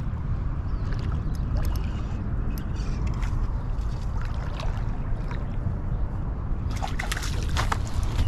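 Wind buffeting the microphone as a steady low rumble, with scattered small clicks and rustles that become busier in the last second and a half.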